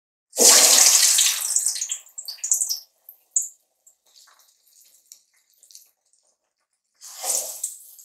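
Balls of urad dal batter dropped into hot deep-frying oil. About a third of a second in, one hits the oil with a sudden loud sizzle that dies down over about two seconds into scattered crackles. About seven seconds in, a second ball goes in with another sizzle.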